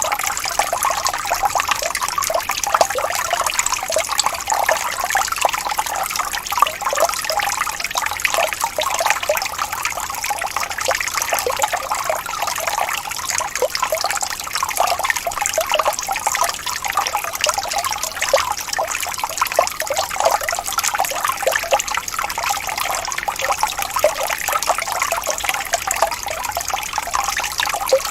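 Small waterfall: water splashing and trickling steadily over rocks, with many small splashes and no low rumble.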